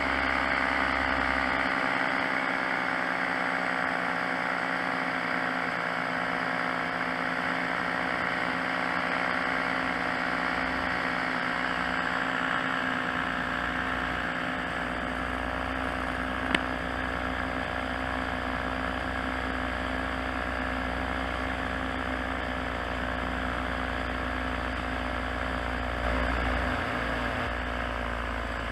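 Paramotor engine and propeller running steadily in flight. A single sharp click comes a little past halfway.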